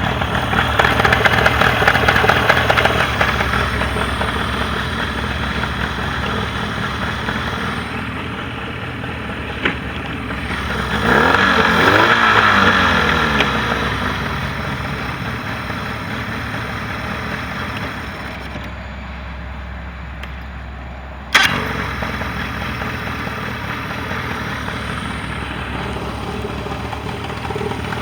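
Mercury 40 hp outboard motor running steadily, revved up and back down partway through. A single sharp clunk about three-quarters of the way through, after which it keeps idling.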